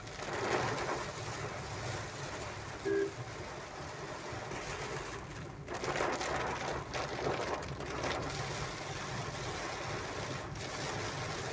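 Heavy rain drumming on a car's roof and windscreen, heard from inside the moving car as a steady hiss that swells in a few surges, over the low hum of the engine and road.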